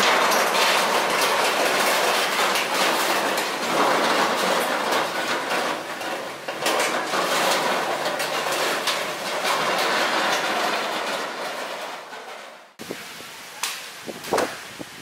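Crumpled corrugated metal roofing sheets moved along a dirt track by a small tractor, scraping and clattering loudly with many sharp clanks. The noise cuts off abruptly near the end, leaving a few short knocks and snaps.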